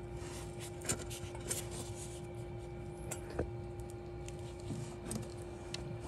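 A few faint clicks and light taps from hands handling a thermistor clip on a metal pipe, over a steady hum.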